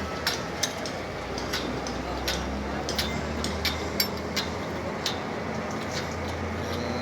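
A dozen or so sharp knocks at an uneven pace over a steady low rumble.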